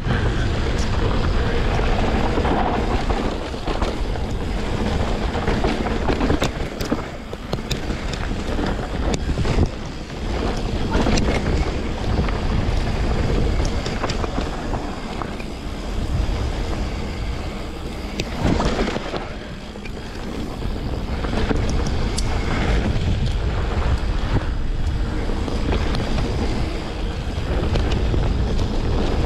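Wind buffeting the microphone of a rider-mounted camera on a descending mountain bike, over its tyres rolling across dry dirt and loose rocks, with scattered clicks and rattles from the bike.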